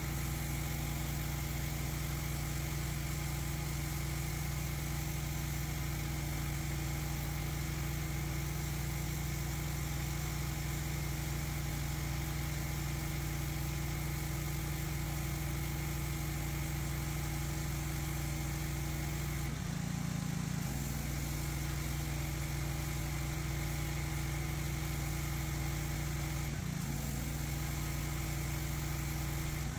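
Pressure washer running steadily, a constant motor drone with the hiss of the water jet spraying on concrete. The drone shifts briefly twice, about two-thirds of the way through and again near the end.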